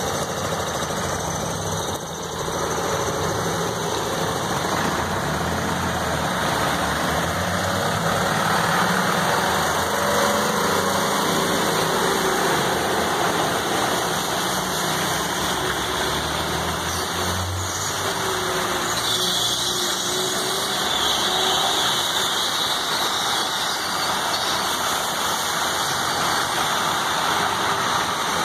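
Street traffic in heavy rain: vehicle engines running and tyres passing through standing water on the wet road, over a steady noise of falling rain. A brighter hiss rises for a few seconds about two thirds of the way through.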